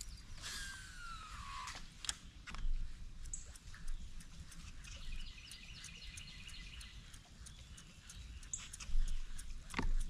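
A fishing reel casting, its spool whirring and falling in pitch for about a second, followed by scattered clicks and ticks and a sharp knock near the end.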